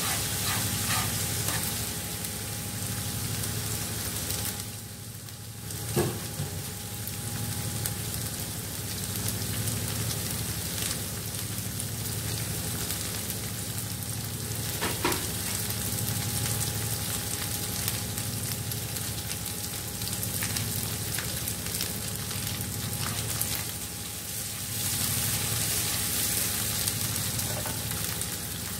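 Hot oil sizzling steadily as minced aromatics fry in a non-stick wok, with occasional stirring. After a brief lull there is a sharp knock about six seconds in, and a fainter one later.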